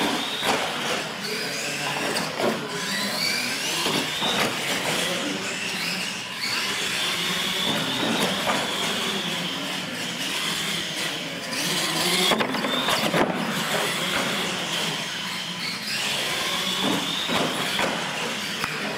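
Electric motors of R/C monster trucks whining, rising and falling with the throttle, with several sharp thumps as the trucks land off ramps and hit obstacles.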